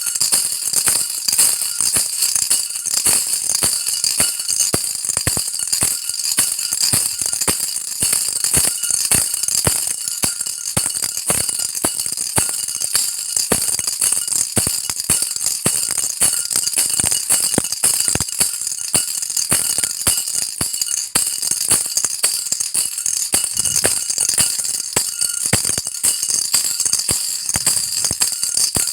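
A baby's rattle being shaken continuously, a dense, bright rattling of loose beads or pellets with a steady run of small clicks.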